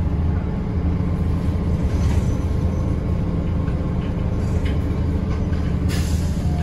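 Bus engine and road noise heard from inside the cabin: a loud, steady low rumble.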